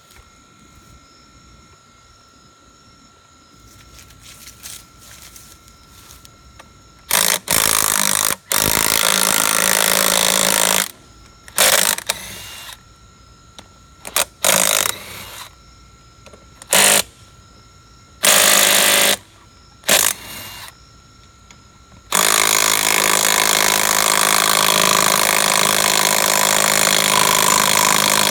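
Cordless DeWalt 20-volt impact rattling on wheel lug nuts: a quiet start, then a string of short and longer bursts of hammering about a quarter of the way in, ending in one long continuous run.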